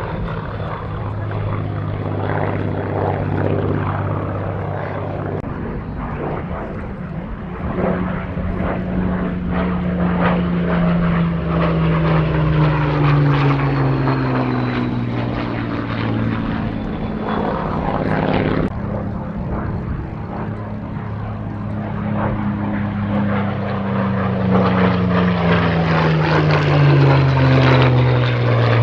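Rolls-Royce Merlin V12 engines of a pair of Spitfires running on low display passes, the engine note dropping in pitch twice as the aircraft go by, loudest near the end.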